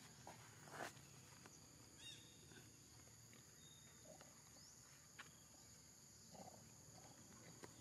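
Near silence: a faint steady high-pitched insect drone, with a few faint short sounds scattered through it.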